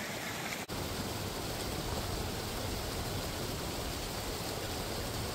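Steady rushing noise, strong in the low end, with a brief dropout less than a second in.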